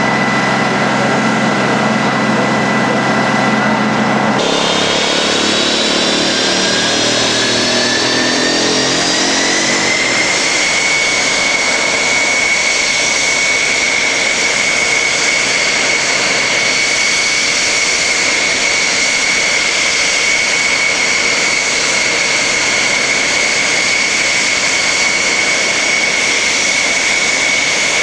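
SR-71's Pratt & Whitney J58 jet engine spooling up. A steady running sound with fixed tones changes abruptly about four seconds in, then a turbine whine rises in pitch for about six seconds and holds steady at a high pitch.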